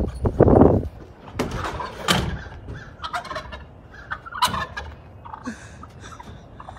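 Wild turkey tom gobbling several times, loudest right at the start.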